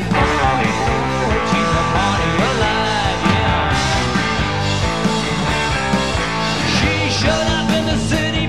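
Rock band playing a song live, loud and dense, with drums keeping a steady beat under the guitars and a few sung phrases.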